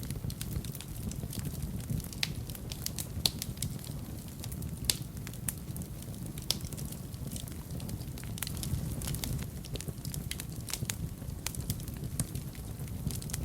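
Wood fire in a fireplace crackling, with irregular sharp pops over a steady low rumble of the flames. Two louder pops come about three and five seconds in.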